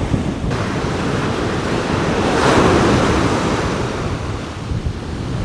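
Ocean surf breaking on a beach, a wave washing in that swells to its loudest about halfway through and then eases, with wind buffeting the microphone.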